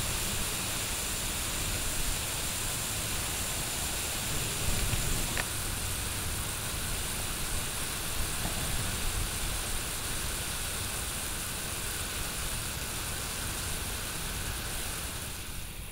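Irrigreen sprinkler head spraying water in several jets, a steady hiss with a low rumble beneath.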